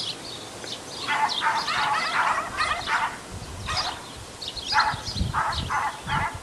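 Small dogs barking back and forth in two runs of yapping barks, the second toward the end: dogs in neighbouring yards calling to each other.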